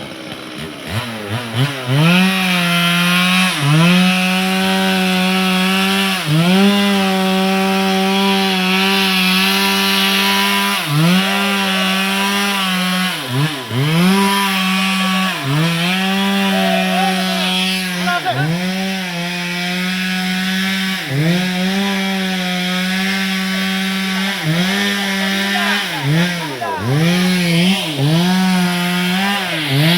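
Stihl MS 382 two-stroke chainsaw cutting through wood at high revs. Its pitch dips and climbs back every two to three seconds as the chain bites and frees in the cut.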